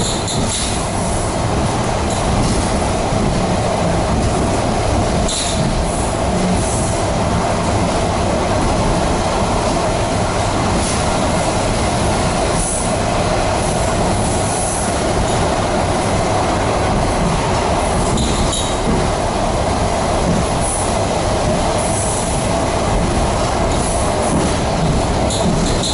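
ED4M electric commuter train running at speed, heard from inside the carriage: a steady rumble of wheels and running gear, with brief high-pitched wheel squeals every few seconds.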